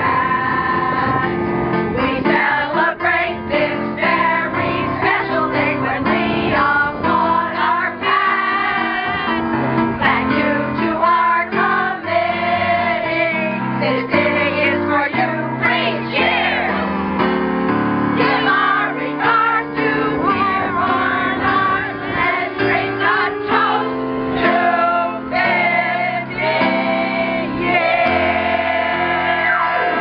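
A group of women singing a song together, accompanied by an electric keyboard playing held chords that change every second or so.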